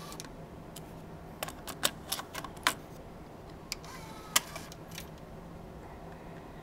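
A cassette deck being handled: a series of short, sharp plastic clicks and clacks, scattered and irregular, as the tape is turned over and loaded, the cassette door is closed and the transport buttons are pressed to play the other side.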